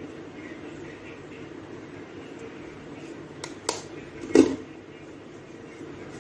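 Steady low hum with three sharp knocks a little past the middle; the last knock is the loudest.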